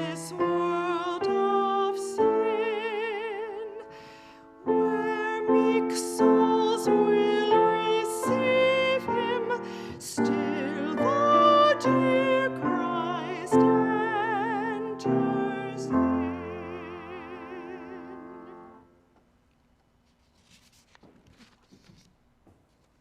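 A hymn sung by a solo voice with strong vibrato, over keyboard accompaniment. The music ends about nineteen seconds in, and near silence follows.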